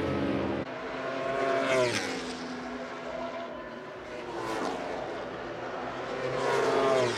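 Racing superbike engines at high revs, passing one after another; the engine note drops as a bike goes past about two seconds in and again near the end. The sound changes abruptly a little over half a second in.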